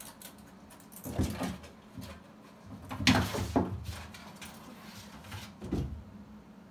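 A few knocks and thumps from a wooden interior door as a cat perched on its top edge jumps down, the loudest cluster about three seconds in.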